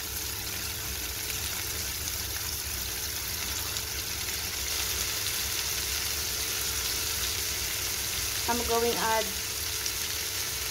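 Onions, tomatoes and freshly added bitter gourd (ampalaya) slices sizzling in oil in a frying pan, a steady hiss. A brief voice comes in near the end.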